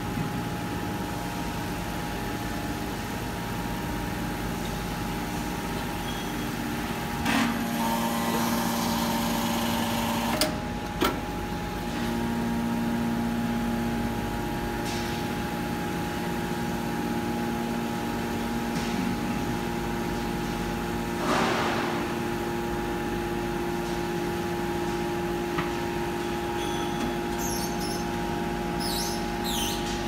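Hydraulic power unit of a metal baler running steadily with a constant hum. Its tone shifts a few times under changing load as the rams work, with a hiss and a sharp click about ten seconds in.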